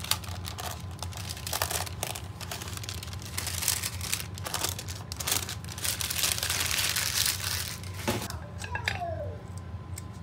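Parchment paper crinkling and rustling as it is peeled off the sides of a baked cake in its pan, dying down about eight seconds in.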